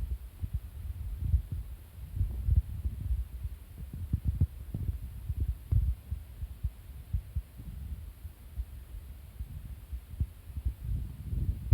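Irregular low rumbling and dull thuds on the microphone, with no clear tone and nothing higher-pitched above them.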